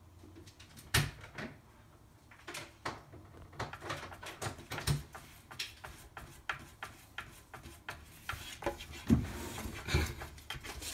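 Plastic cat flap clicking and knocking irregularly against its frame as a Maine Coon cat pushes at it with its head, with a couple of louder knocks near the end.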